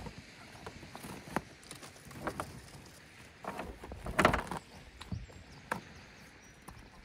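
Scattered knocks and rustles of gear being strapped down on a plastic fishing kayak: a dry bag and its cords handled against the hull. The busiest stretch is about four seconds in, with a sharp single knock shortly after.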